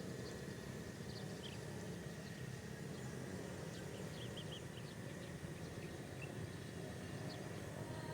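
Rural outdoor ambience: a steady low rumble with faint, short bird chirps scattered through it, including a quick run of three chirps near the middle.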